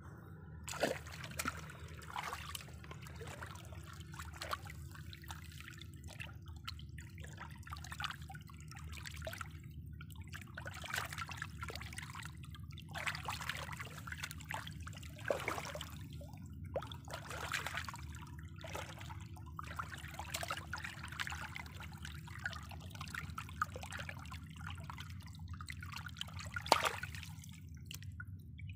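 Hands splashing and rubbing in a shallow stream while washing a gutted fish, over the stream's trickle: irregular splashes, the loudest one near the end.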